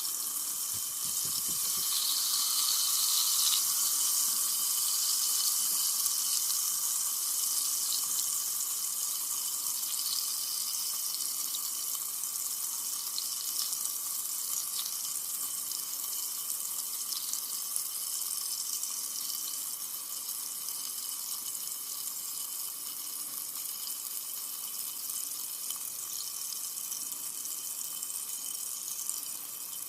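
Carbonated soda fizzing steadily, a high hiss of tiny bubbles popping, with faint steady high tones underneath.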